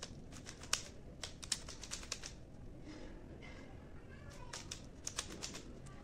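Plastic 3×3 Rubik's cube being turned by hand: quick runs of clicks and clacks as its layers are twisted, in two bursts with a pause of about two seconds between them.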